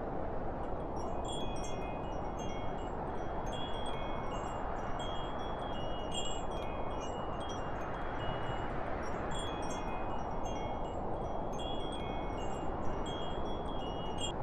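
Wind chimes tinkling, several high ringing notes struck irregularly in small clusters, over a steady rush of wind.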